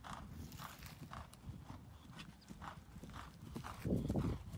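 Horse's hoofbeats, a steady clip-clop of about two to three hoof strikes a second. Near the end a louder low rushing noise comes in over them.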